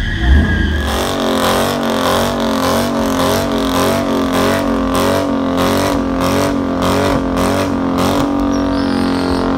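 Dodge Challenger's engine held at high revs in a burnout, its rear tyres spinning. The pitch holds nearly level with a slight waver, and irregular sharp crackles run through it, until it drops away near the end.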